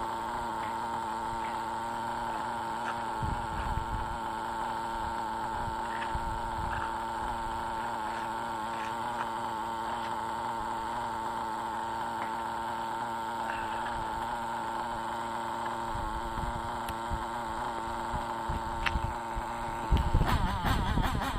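Two-stroke .21 nitro glow engine of an RC monster truck idling steadily with a buzzing hum. Near the end it revs up, the pitch climbing.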